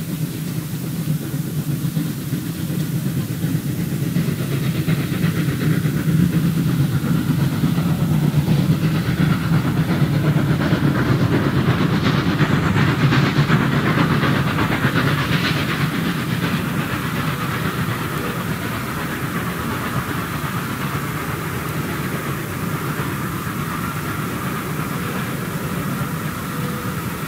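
Steam train passing: the DB class 01.10 steam locomotive 01 1066 running with a hiss of steam, and a long train of coaches rolling by with wheels clacking over the rail joints. It is loudest about a third to halfway through and then eases off.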